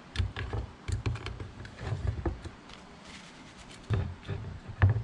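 Hands mixing seasoning into raw fish fillets in a dish: scattered light clicks and taps, with dull low thumps of handling, the loudest near the end.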